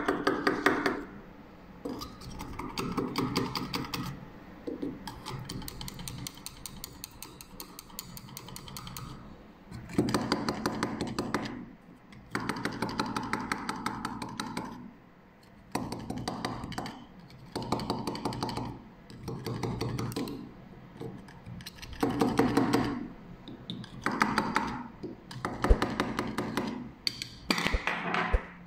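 Screwdriver tip working in the plastic vent holes of a sealed lead-acid battery, scraping and squeaking in repeated strokes of a second or two.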